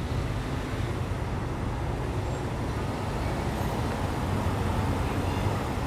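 Steady low rumble of a motor vehicle running close by, mixed with general street traffic noise.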